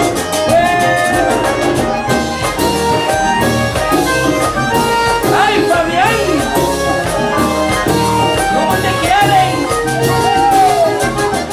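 Live band playing Latin dance music led by an accordion, with a steady percussion beat underneath.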